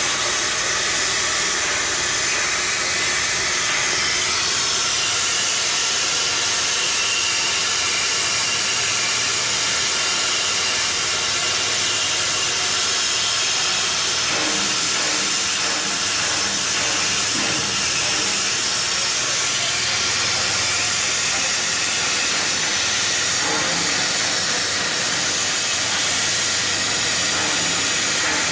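Oxy-fuel cutting torch hissing steadily as its flame and oxygen jet cut through rusted steel plate.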